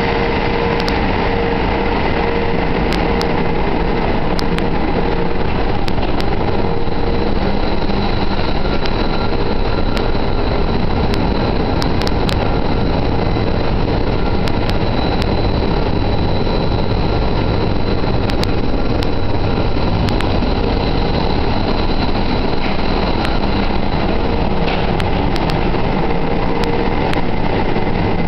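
Loud, steady din of a ship's engine-room machinery running, a dense noise with a few steady whining tones over it.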